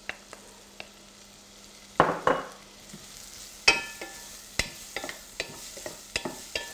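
Wooden spatula stirring and scraping chopped celery and garlic in butter in a nonstick pot, over a faint sizzle. Sharp knocks of the spatula against the pot come several times a second in the second half.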